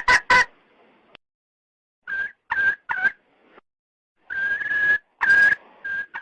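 Red junglefowl hen calling to the rooster: a run of quick clucks that stops half a second in, then after a pause three short calls, a longer drawn-out call and two more short ones, all at much the same pitch.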